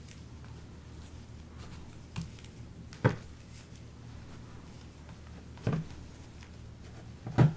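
Embroidery floss and storage bins being handled while sorting: four short knocks and clicks, the second and last the sharpest, over a steady low hum.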